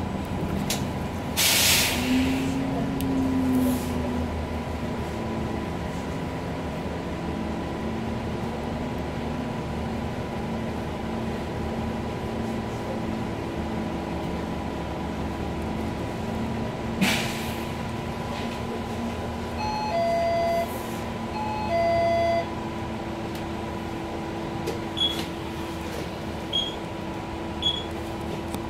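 Inside a stationary city bus: the engine idling with a steady hum, cut by two short sharp hisses, one near the start and one a little past halfway. A falling two-note electronic tone sounds twice about two-thirds through.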